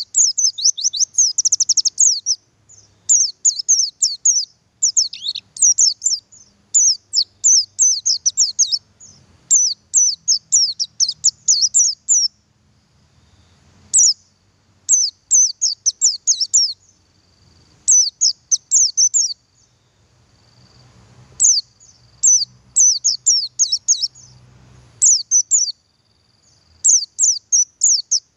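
Male white-eye (pleci buxtoni, the Javan oriental white-eye) calling in quick runs of high, thin, down-slurred chirps. The runs last one to two seconds each, with short pauses between them.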